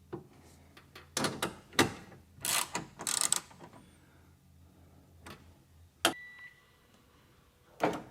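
Ratchet clicking and metal tools clinking in short bursts as the bolts of a car window regulator and motor are tightened inside the door, with a sharp click about six seconds in.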